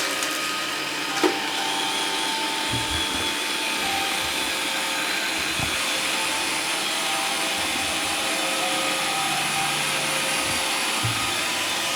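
iRobot Roomba 530 robot vacuum running with a steady whir, with one sharp click about a second in.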